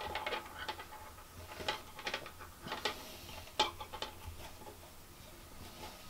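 Nylon paracord being handled and pulled through a cobra knot by hand: light rustling and sliding with scattered soft clicks, the sharpest about three and a half seconds in.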